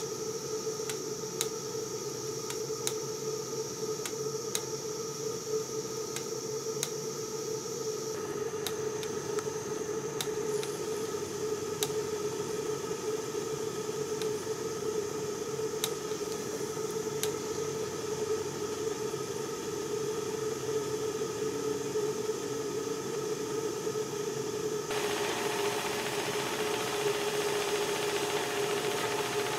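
Stuart 7A model steam plant running in steam: a steady hiss with a steady hum under it, and faint regular clicks about once a second through the first half. The hiss gets louder near the end.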